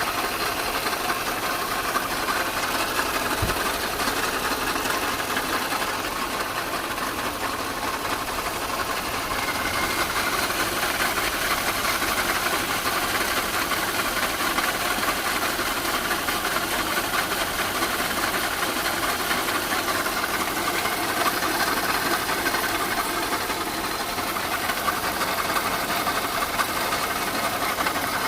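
A machine running steadily with a fast, even rattling knock, which is the strange noise being recorded.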